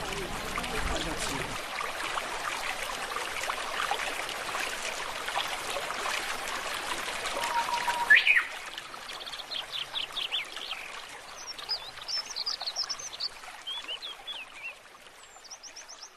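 A steady rushing noise, like running water, ends with a short rising sound about halfway. Then birds chirp and twitter in quick high notes, fading out near the end.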